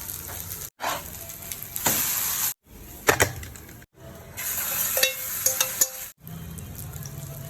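Omelette frying in hot oil in a pan, a steady high sizzle, cut off abruptly several times and resumed, with a few sharp clinks in the middle.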